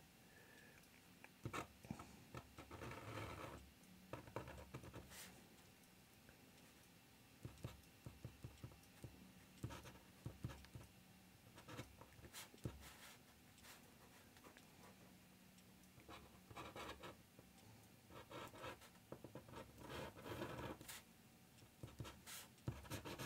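Faint strokes of an ink pen on paper, short scratchy marks in small irregular clusters with a few light ticks, as the pen fills in lines.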